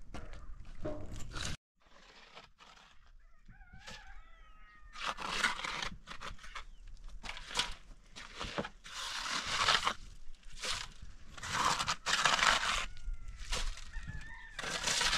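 A metal scoop scraping through gritty material in a metal basin, in repeated rough strokes about a second apart. A rooster crows about four seconds in, with chickens clucking in the background.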